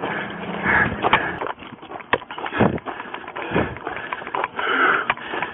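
Handling noise on a body-worn camera as the officer wearing it moves: fabric and gear rubbing on the microphone, with footsteps on gravel and scattered knocks and a few dull thuds.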